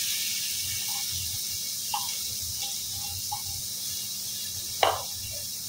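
Chopped vegetables, carrot among them, frying in hot oil in a pan, a steady sizzle of the poha tempering. A few light clinks sound through it, and a short scrape comes about five seconds in.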